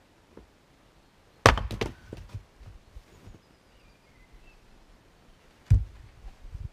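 Fiskars X25 splitting axe swung one-handed into firewood: a sharp hit about a second and a half in, followed by a short clatter of split pieces, then another sharp knock of wood near the end.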